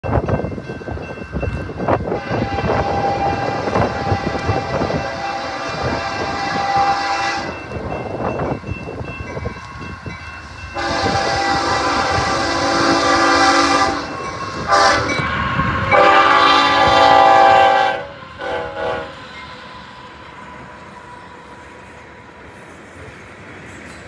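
Freight locomotive's air horn sounding a chord of several tones at a grade crossing: a long blast, a second long blast about halfway in, a brief toot, another long blast and a final short toot, roughly the long-long-short-long crossing signal. Under the horn and after it, the train rumbles past on the rails.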